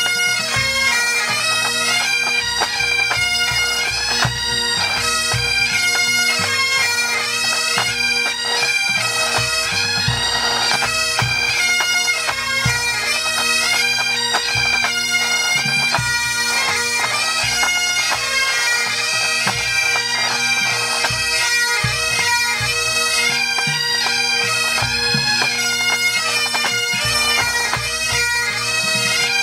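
Pipe band playing: Great Highland bagpipes carrying a melody over their steady drones, with the drum corps' side, tenor and bass drums beating underneath.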